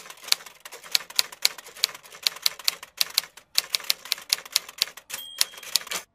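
Typewriter keys clacking at an irregular typing pace, with a short break about halfway through. A brief bell ring comes about five seconds in, followed by a few more strokes.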